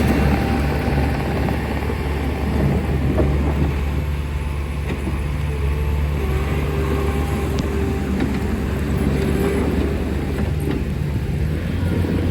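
Diesel engine of a 2019 Bobcat T650 compact track loader running steadily, a continuous low hum.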